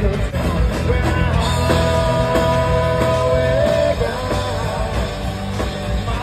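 Live rock band playing with electric guitars, drums and vocals; a long note is held for about two seconds in the middle.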